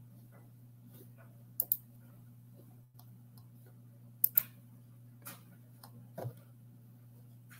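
Computer mouse clicks: two quick double clicks a few seconds apart, then a couple of fainter single clicks, over a steady low electrical hum.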